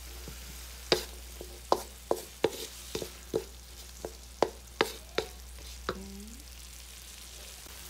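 Wooden spatula stirring shrimp, carrots and tomato in a hot wok: sharp, irregular knocks and scrapes against the pan, about one or two a second, over a low sizzle. The knocks die away about six seconds in.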